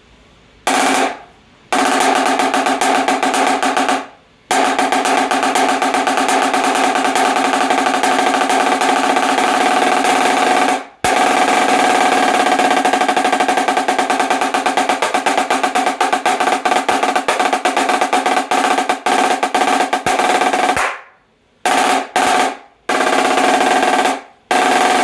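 Snare drum tuned for a marching 'drumline' sound, with a mylar bottom head and a tight top head, played in long, dense rolls with a ringing pitch. Near the end the rolls give way to several short bursts.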